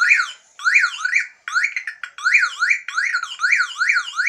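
Battery-powered horn sounding a rapid warbling siren tone that sweeps up and down about two and a half times a second. It breaks off briefly three times in the first two seconds, then runs on without a break. It is meant to run off a car battery but is wired to dry-cell batteries here.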